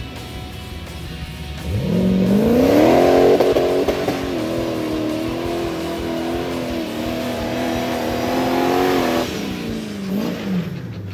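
Off-road buggy's engine revving up about two seconds in, held at high revs with small rises and dips for several seconds, then dropping off and briefly revving again near the end. Music plays faintly underneath.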